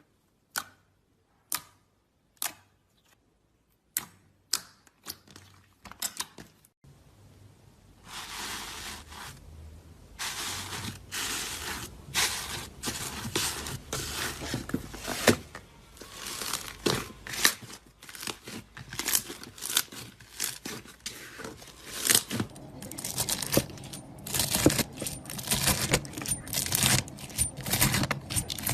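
Slime being played with by hand: a few separate sharp pops about once a second, then from about eight seconds in a dense, continuous crackling and squishing.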